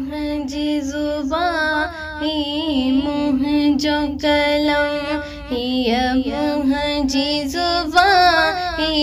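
A woman singing the opening of a Sindhi Muharram qasida, a devotional lament, her voice sliding through ornamented phrases over a steady held drone.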